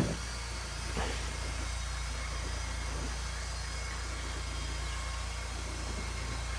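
Steady low hum and hiss of background noise, with a faint click about a second in.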